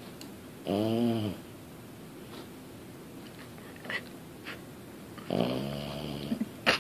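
French bulldog puppy snoring in its sleep: two long pitched snores, one about a second in and a longer one past the middle, with a short sharp click near the end.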